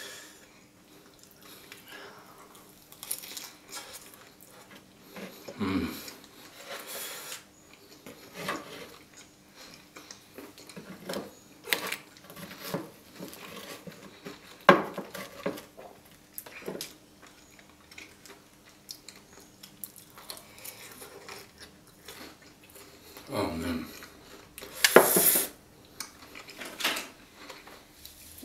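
Eating sounds: a metal fork and knife clicking and scraping now and then on a wooden cutting board, between close-miked chewing of Nutella-covered waffles.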